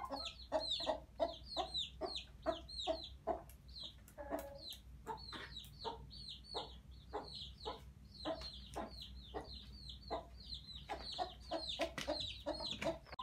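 Domestic chicks peeping in quick, high, downward-sliding cheeps, several a second, over a hen's lower clucks, with scattered sharp ticks.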